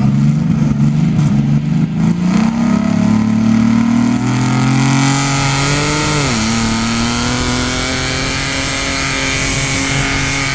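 Toyota pickup truck's engine revving hard as it pulls through a mud bog pit: the pitch climbs for about six seconds, drops sharply, then holds steady, rising slowly.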